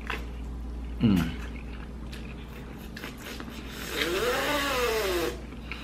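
Corn on the cob being bitten and chewed close to the microphone, with faint scattered mouth clicks. There is a short 'mm' about a second in, and near the end a longer hummed 'mmm' of enjoyment that rises and falls in pitch. A steady low hum runs underneath.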